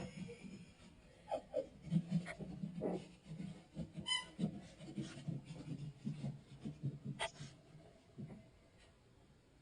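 Yorkshire terrier puppy panting and snuffling while it plays, with soft rubbing and a few light clicks. A brief high squeak about four seconds in.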